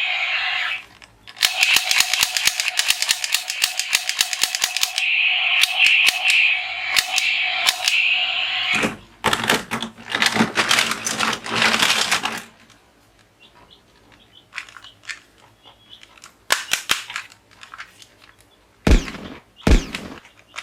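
Toy gun firing, with long runs of very rapid machine-gun-like clicking over a steady electronic tone for most of the first twelve seconds. After that come scattered lighter clicks, and two dull thumps near the end as the toy is handled.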